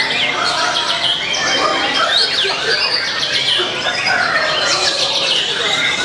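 Caged white-rumped shamas and other songbirds singing at once: a dense, unbroken chorus of quick whistles, chirps and trills.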